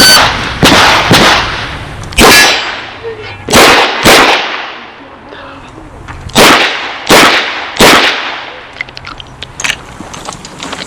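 Chiappa Rhino .38 Special revolver firing a string of about nine shots at an uneven pace, with a pause of about two seconds in the middle. Steel targets ring briefly after some of the hits. Faint clicks and movement follow the last shot near the end.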